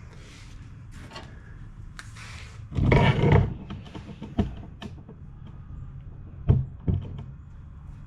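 Workshop handling noises from working on a mower deck: scattered clanks and knocks of tools and metal parts, with one louder, rougher burst about three seconds in and a few sharp knocks near the end.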